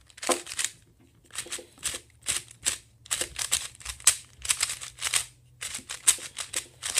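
Qiyi Warrior W 3x3 speedcube being turned quickly, its plastic layers clicking and scraping about three times a second in short runs. The turning is really sandy, a gritty feel typical of a new, tight cube.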